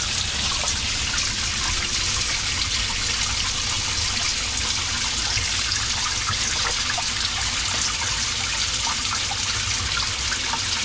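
Water pouring steadily out of the return pipe into the bottom of a plastic sieve filter box as it fills.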